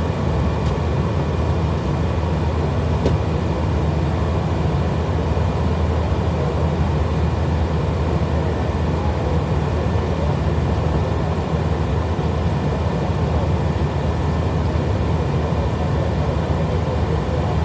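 Steady drone of a jet aircraft in flight, heard from inside: engine and airflow noise as an even, deep rumble that holds unchanged throughout.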